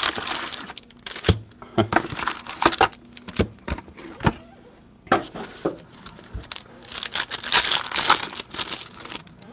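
Foil-wrapped 2013-14 Panini Prizm hockey card packs crinkling as they are handled and pulled from the cardboard blaster box, with scattered clicks of cardboard and fingers. Near the end a foil pack is torn open, and the crinkling is loudest there.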